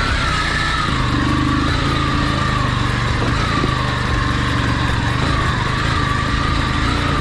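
Motorcycle engine running steadily, with a thin wavering whine above the engine hum.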